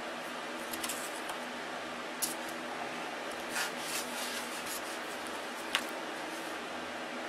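A few short rustles and light scrapes as a carved balsa wingtip block is handled and rubbed against the balsa wing, with one sharp tick a little before the end, over a steady background hiss.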